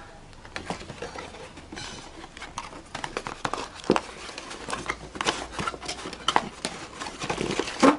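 Hands rummaging through a cardboard box and its packaging: rustling and crinkling with irregular small clicks and knocks.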